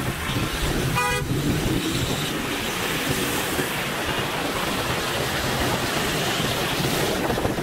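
Steady road-traffic noise on a wet city street, engines and tyres, with one short vehicle horn toot about a second in.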